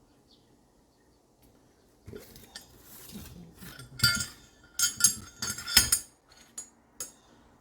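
Metal parts of a bicycle suspension fork clinking and knocking against each other as it is being put back together. After about two quiet seconds comes a shuffle of handling, then a string of sharp clinks, the loudest around the middle, with a few lighter ones near the end.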